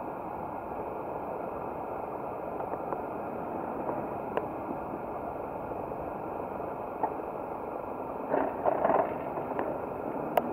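Steady rushing noise of riding a bicycle along a cycle path: wind and tyre noise, with a few sharp clicks and a brief rattle a little past eight seconds in.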